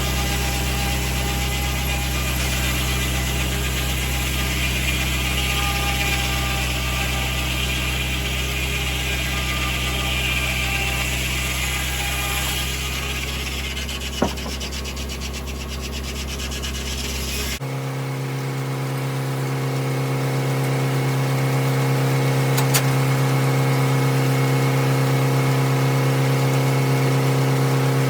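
Tractor engine running steadily, driving a 1950 Corley circular sawmill. About two-thirds of the way through the sound changes abruptly to a steadier, louder engine hum, with a single sharp click a few seconds before the change.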